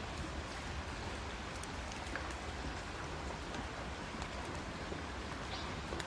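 Steady rushing noise of a flowing river, with a few faint ticks or drips scattered through it.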